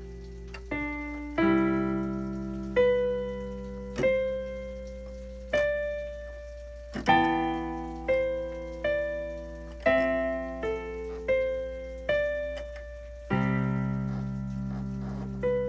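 Electronic keyboard with a piano sound played slowly, improvised: sustained chords struck about once every second or so, each ringing and fading before the next. A steady low hum runs underneath.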